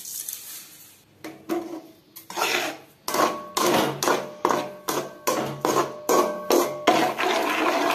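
Steel spoon stirring carrot paste and sugar in a metal pot, scraping and knocking against the pot in quick strokes. The strokes come about three a second from about two seconds in, each leaving a faint metallic ring.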